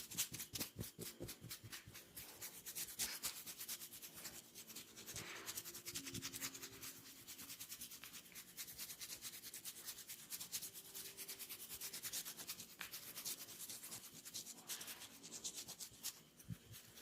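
Hands rubbing and massaging over skin: a quiet, quick, scratchy rubbing made of many short strokes.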